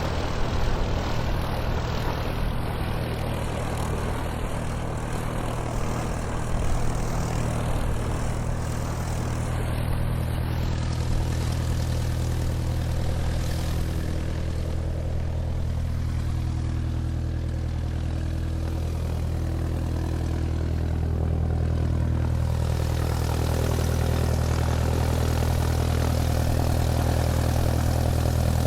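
Airplane taxiing on the ground, its engine running with a steady low drone. It grows slightly louder about two-thirds of the way through.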